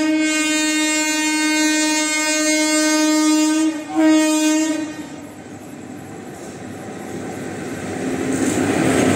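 Indian Railways express locomotive horn sounding one long blast of nearly four seconds, then a short second blast. The rumble of the approaching train then grows steadily louder.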